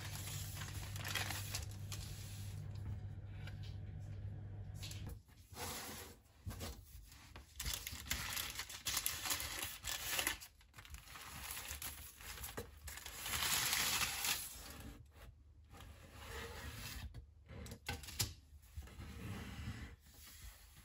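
Baking parchment paper rustling and crinkling as it is handled, in irregular bursts. A steady low hum runs under the first five seconds and stops.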